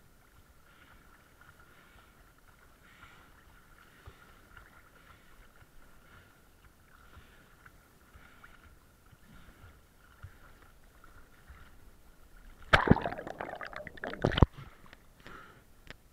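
Sea water splashing and sloshing against a waterproof action camera at the surface: a loud, rough burst of about two seconds near the end, with a sharp hit at its start and another at its end. Before it, only a faint steady high hum.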